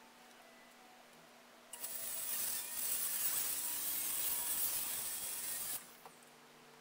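Circular saw cutting through a plywood sheet, starting about two seconds in and stopping suddenly after about four seconds.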